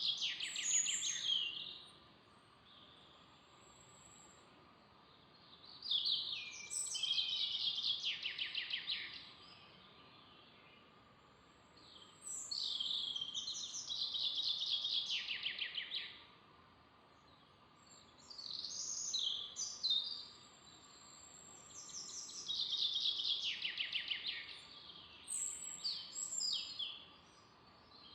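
A songbird singing the same short phrase over and over, about six times, each a second or two of fast high trilled notes, with quiet steady forest background noise between the phrases.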